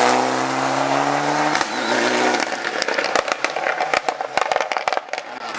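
Rally car engine running hard at high revs, cutting off about a second and a half in and again about two and a half seconds in, followed by a rapid, irregular string of sharp pops and cracks.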